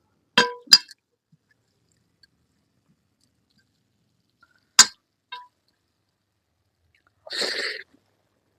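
Dishes clinking during a meal: two sharp clinks with a short ring about half a second in, another clink and a lighter tick around five seconds, then a brief noisy sound of about half a second near the end.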